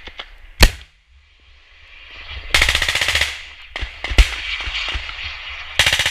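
Gunfire in a live-fire exercise: a very loud single shot about half a second in, a burst of rapid automatic fire around the middle, another loud shot a little after four seconds, and a second automatic burst near the end.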